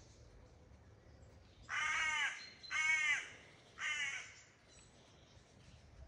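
A bird giving three loud, harsh calls, each about half a second long and about a second apart, starting near two seconds in.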